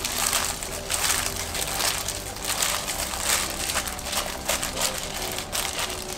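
Hands in thin plastic gloves kneading and tossing boiled bracken fern stems with minced garlic and seasoning in a glass bowl. The stems squish wetly and crinkle in repeated strokes, roughly one a second, as the seasoning is worked in.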